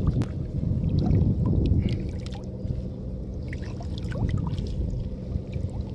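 River water sloshing and dripping around a wading man as a monofilament gill net is hauled up out of the shallows by hand, with small splashes and drips over a steady low rumble.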